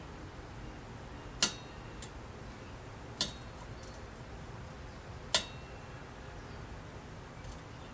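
Sharp metallic clicks and clinks of small metal parts: a screw and screwdriver knocking against the side light's metal housing as they are worked into place. Three loud clinks come a couple of seconds apart, each with a brief ring.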